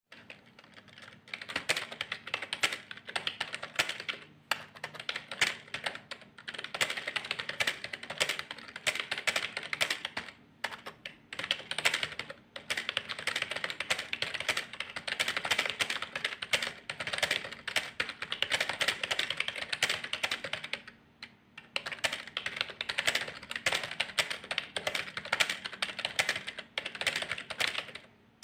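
Fast typing on a computer keyboard: rapid, continuous key clicks, broken by a few short pauses of about a second.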